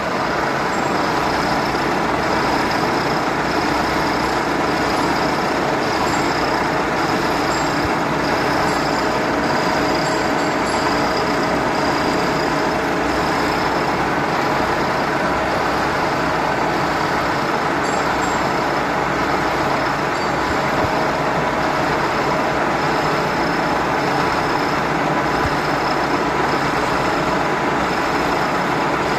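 Milling machine running steadily through a side-milling cut: continuous machine noise with a high whine that pulses at an even beat, a little more than once a second.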